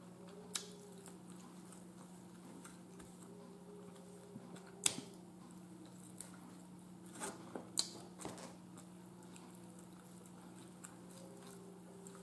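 Quiet eating sounds: smoked turkey leg meat being pulled from the bone by hand and chewed, with soft squishes and a few sharp clicks, the loudest about five seconds in and several more around seven to eight seconds. A steady low hum runs underneath.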